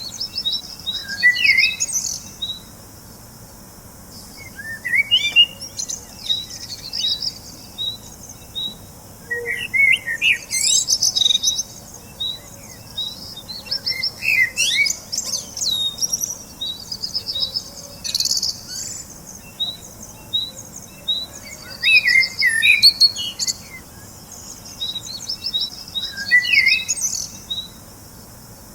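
Songbirds singing and chirping, with short song phrases and runs of quick repeated chirps coming every few seconds.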